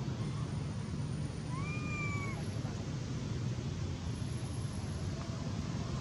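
Long-tailed macaque giving one short coo call, a clear whistle-like note that rises slightly then holds, about one and a half seconds in, over a steady low hum.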